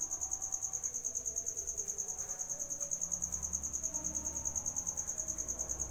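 A cricket trilling: a steady high-pitched trill, pulsing rapidly and evenly without a break.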